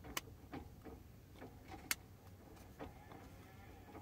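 Small clicks and plastic taps from handling a rechargeable LED lamp, two sharper clicks standing out about a second and a half apart.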